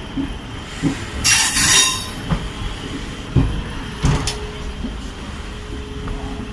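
Passenger train running, heard from inside the coach: a steady low rumble with a few irregular wheel knocks over the rails. About a second in there is a loud hiss lasting under a second.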